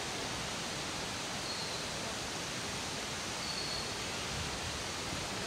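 Steady, even rushing outdoor noise with no clear events, and twice a faint, short, thin high whistle from a distant bird.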